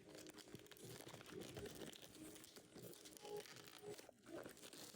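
Faint crinkling and tearing of trading-card foil packs being opened by hand, with scattered small ticks.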